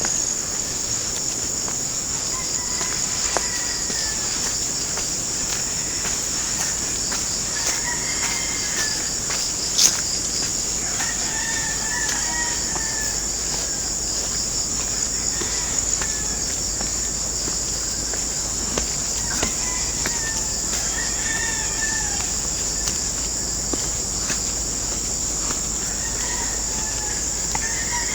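Roosters crowing several times, each crow an arching call of a second or two, over a steady high chirring of insects such as crickets or cicadas. A single sharp click sounds about ten seconds in.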